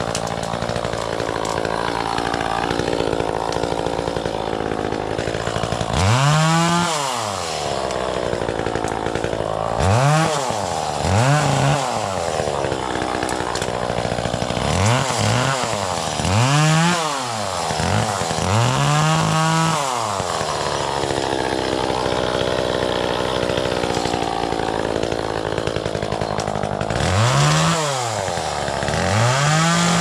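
Chainsaw engine idling and being revved up and back down over and over as it cuts through brush and tree limbs, with a longer stretch of steady idle about two-thirds of the way through.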